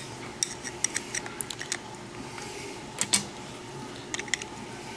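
Light metallic clicks and ticks of a flat-blade screwdriver working the small slotted screws on a diesel injection pump's fuel-shutoff cover, tightening them to squeeze the shutoff shaft's O-ring seal. The clicks come scattered, a run of them in the first two seconds and a few more around three and four seconds in, over a faint steady hum.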